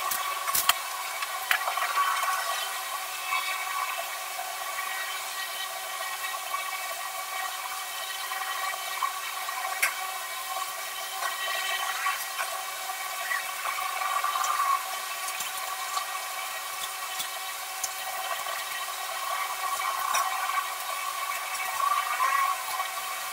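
Soft graphite pencil (4B/3B) scratching and shading on drawing paper: a steady scratchy hiss that swells and eases with the strokes, with a few light taps.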